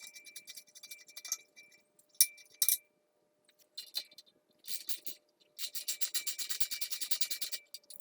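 Metal hand tools clinking, then a run of rapid, even clicks like a ratchet wrench being worked on a bolt for about two seconds near the end.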